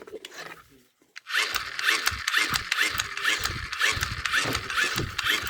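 Small battery motor of a toy fan switched on about a second in and whirring, with a quick repeating chirp and rattling clicks.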